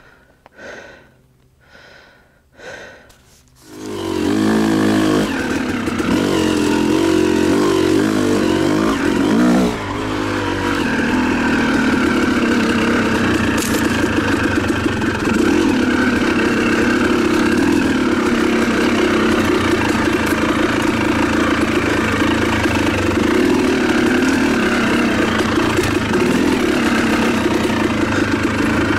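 Hard, rhythmic breathing for the first few seconds. Then the Yamaha YZ250's two-stroke single-cylinder engine starts about four seconds in, revs unevenly for several seconds, and settles into running steadily with small throttle changes.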